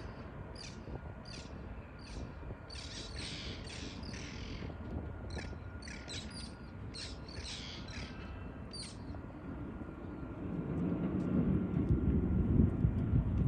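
A string of short, harsh bird calls, about one or two a second, that stops about nine seconds in. From about ten seconds in a low rumble swells up and is loudest near the end.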